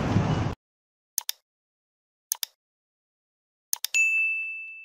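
Outdoor noise cuts off abruptly, followed by three mouse-click sound effects about a second apart. A single bell ding then rings on and fades: the click-and-bell sound effects of a subscribe end card.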